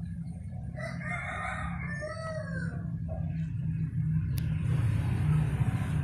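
A rooster crows once, a call of about two seconds. A steady low hum runs underneath, and from about four seconds in a rushing noise grows louder.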